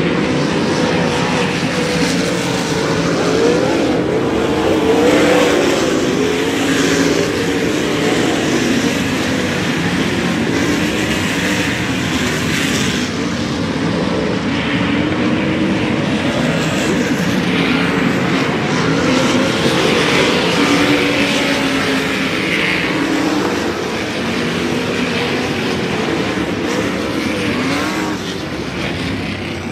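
A pack of winged dirt-track sprint cars racing at full throttle, with several V8 engines at once rising and falling in pitch as they power through the turns. It gets a little quieter near the end.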